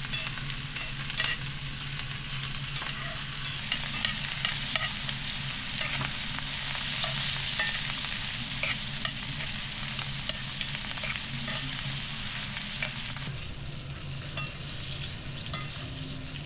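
Ribeye cap steak sizzling in butter in a cast-iron pan while it is basted, a steady hiss dotted with small spattering crackles. The sizzle is strongest in the middle and drops suddenly about 13 seconds in.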